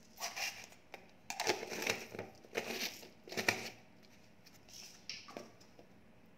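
Crinkling and rustling of a plastic packet being handled, in about five short irregular bursts, the busiest in the middle.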